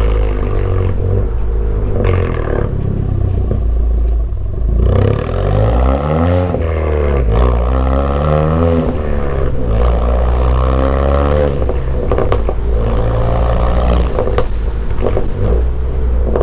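Straight-piped, turbocharged four-cylinder engine of a modified 10th-gen Honda Accord under way. Its pitch rises and falls several times as it pulls and is shifted.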